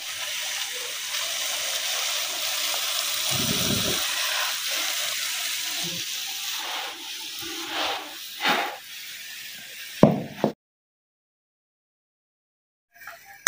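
Egg, onion and tomato mixture sizzling in ghee in a pan, a steady hiss with a low thump about three and a half seconds in. The hiss fades after about seven seconds, a few short knocks follow, then the sound cuts off abruptly.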